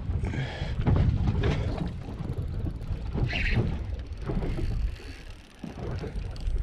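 Wind rumbling on the microphone on an open boat, uneven and gusty, easing briefly about five seconds in. A short higher-pitched sound stands out about three and a half seconds in.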